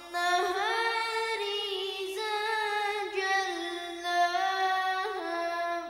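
A boy's voice reciting the Quran in the melodic, chanted tajweed style, drawing out one long ornamented phrase that ends near the end.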